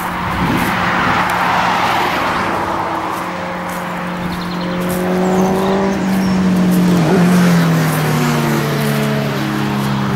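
Road traffic passing: the tyre noise of one vehicle swells and fades in the first couple of seconds, then a second vehicle's engine note rises as it approaches and drops in pitch as it passes, about seven seconds in.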